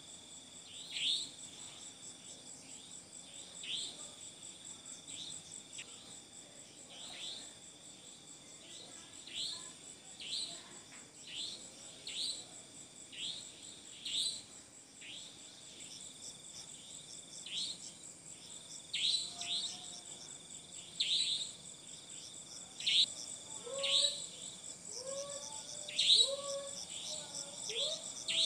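Night chorus of crickets and other insects: a steady high trill with short, sharp chirps repeating about once a second. In the last few seconds a lower short call, rising at the end, joins in several times.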